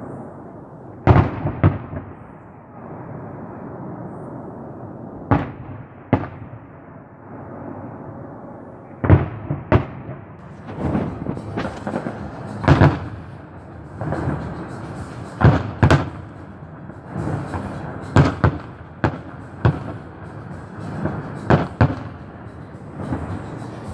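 Aerial firework shells bursting in the sky: a series of sharp bangs every few seconds, often two in quick succession.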